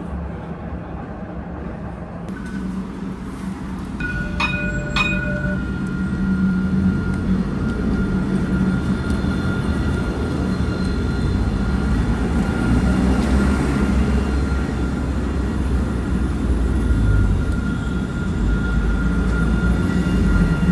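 Dubai Tram (Alstom Citadis) running with a steady low rumble. It then stands at the platform with a steady electric whine, and two short beeps come about four seconds in.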